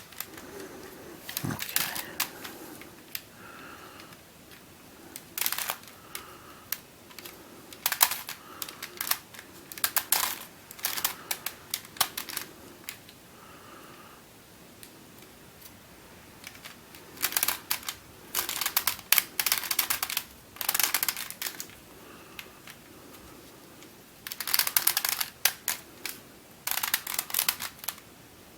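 Dayan and MF8 Bermuda Megaminx, a plastic twisty puzzle, being turned by hand to scramble it: clicking and clacking as faces turn and snap into place. The clicks come in irregular bursts with short pauses between them, busiest in the second half.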